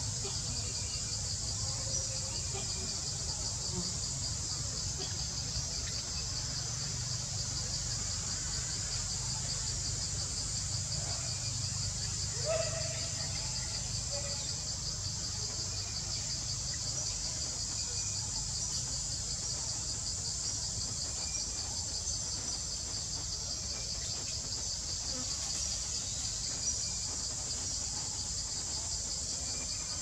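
Steady chorus of forest insects: a continuous high-pitched buzz with a fine, rapid pulse, over a low steady rumble. A short, separate sound stands out about twelve seconds in.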